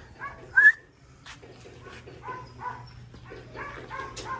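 A dog giving a series of short high whines, a louder rising one about half a second in, then a run of softer ones.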